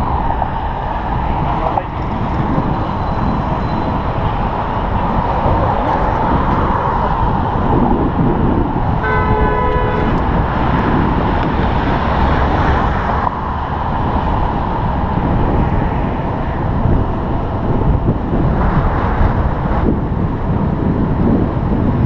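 Steady road traffic noise, with a vehicle horn sounding once for about a second, about nine seconds in.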